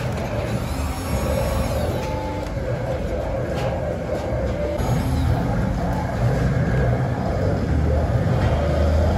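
Handheld heat gun running steadily: a constant blowing noise with a low hum underneath.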